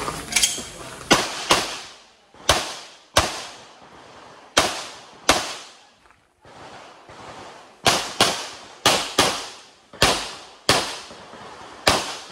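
Pistol shots fired in a practical shooting stage run: about fifteen sharp reports, many as quick pairs, each trailing a short echo. There is a pause of a second or two about halfway through.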